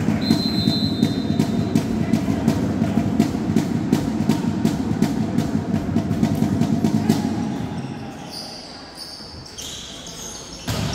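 Drums beating a fast, steady rhythm over a continuous din, dying down about seven seconds in.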